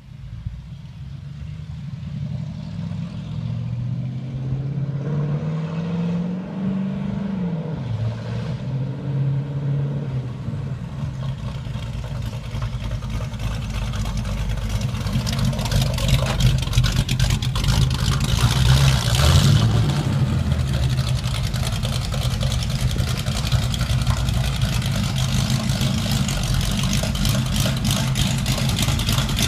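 Ford Model T hot rod's engine approaching: the revs climb a few seconds in, then drop back. It grows louder as the car comes close and runs loud at low speed as it pulls into a garage, with a pulsing beat.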